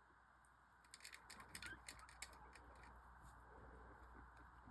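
Near silence: room tone with a few faint, short clicks, most of them between about one and two seconds in.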